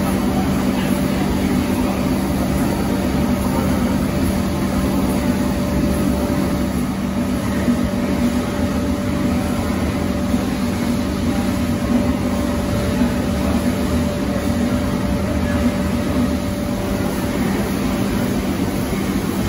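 Stationary engine running steadily, a continuous mechanical hum with a fainter higher tone that fades out about two-thirds of the way through.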